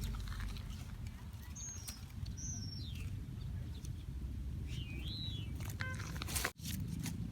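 A few short bird chirps, high and gliding, one falling and one arching, over a steady low background rumble; the sound briefly drops out near the end.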